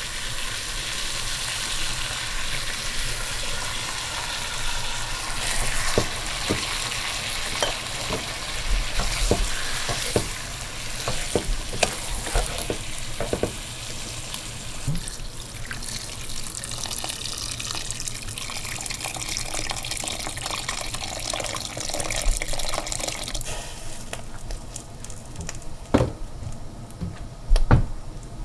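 Meat sizzling as it fries in a pot, stirred with a wooden spoon that scrapes and knocks against the pan. Near the end, water is poured in and the sizzle dies down, leaving a few louder knocks of the spoon.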